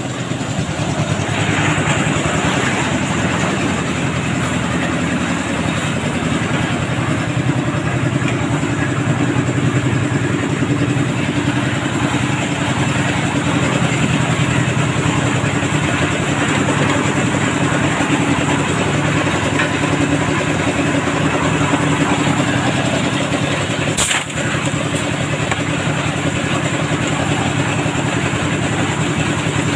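Concrete mixer machine running steadily at work, its engine and turning drum making a continuous loud mechanical noise. One sharp knock stands out late on.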